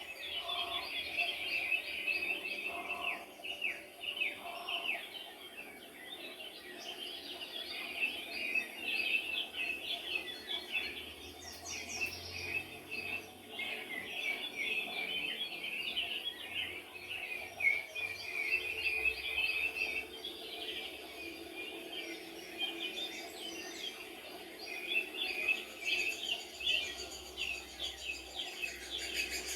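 A chorus of many small songbirds chirping and singing at once, a dense, continuous twittering of short high notes. Near the end it turns higher and faster.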